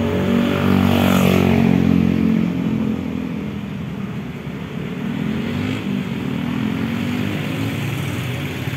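Passenger train running away along the track, its sound fading over the first few seconds. An engine note rises and falls as something passes close about a second in.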